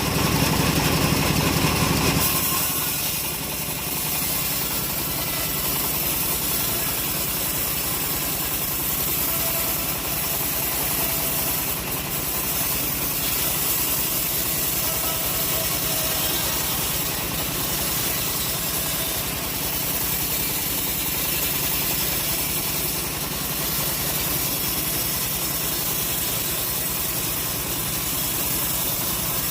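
Engine of a homemade portable sawmill running steadily. It is louder for about the first two seconds, then settles to an even level.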